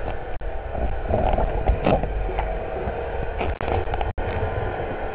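A motorboat's engine and propeller heard underwater as the boat leaves: a steady low rumbling drone with faint steady whining tones above it.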